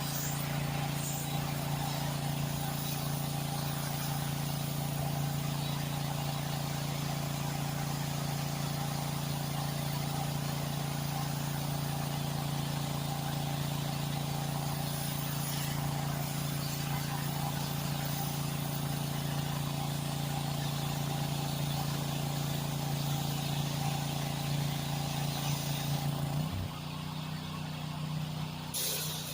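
Gasoline pressure washer engine running steadily under load, an even drone. About 27 seconds in the drone drops and changes, then comes back right at the end.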